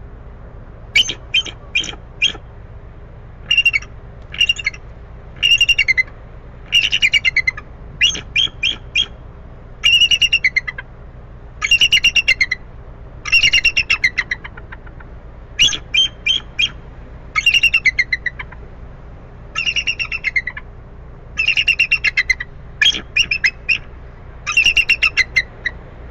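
Eagle calling: repeated bursts of rapid, high chattering notes, each burst under a second long and dropping slightly in pitch, coming every second or two. A steady low hum runs underneath.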